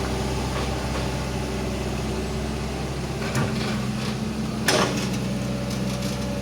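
Hitachi Zaxis 120 excavator's diesel engine running steadily, with a short clank about three and a half seconds in and a louder clank near five seconds.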